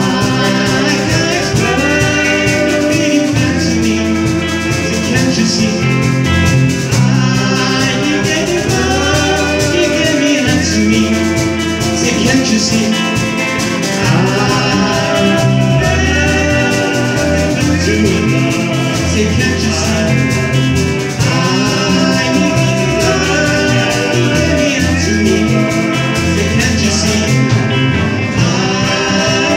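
Live rock band playing a song: electric guitars and a drum kit, with a sung vocal line over them, going on without a break.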